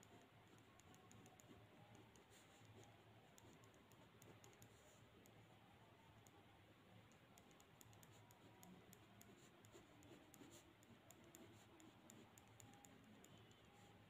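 Faint pen scratching and ticking on paper in quick, irregular strokes while drawing, over near-silent room tone.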